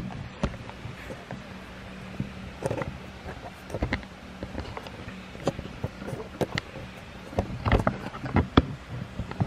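Handling noise of a camera being fitted onto a small tripod: scattered clicks and knocks, with a quicker cluster near the end, over a faint steady hum.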